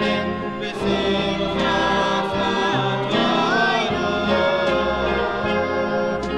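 A choir singing a Chassidic melody with orchestral accompaniment, held notes over a bass line that changes note every second or so, with one sliding vocal phrase about three seconds in.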